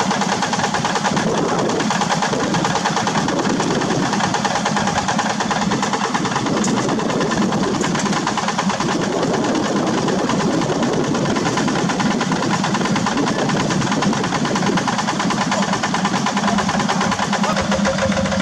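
Diesel engine of a two-wheel walking tractor running steadily.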